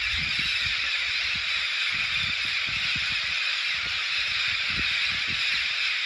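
Massed calling of a huge flock of red-spectacled parrots flying overhead, thousands of voices blending into a steady, even hiss, with an irregular low rumble underneath.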